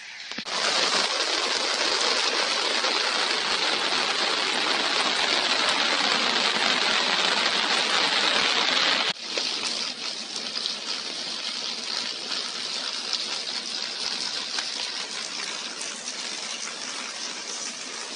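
Heavy rain falling steadily, a dense hiss of water. About nine seconds in it cuts abruptly to a slightly quieter stretch of the same rain.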